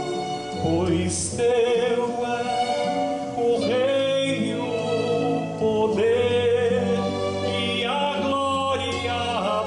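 A man singing a slow, legato melody with vibrato on long held notes, over sustained instrumental accompaniment.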